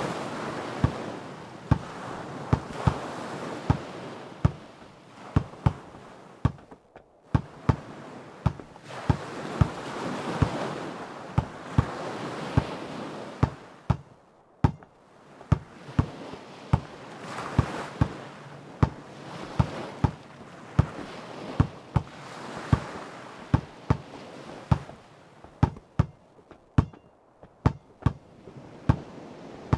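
A basketball being dribbled on hard ground in a steady rhythm, over ocean waves washing in and out in swells that rise and fade every several seconds.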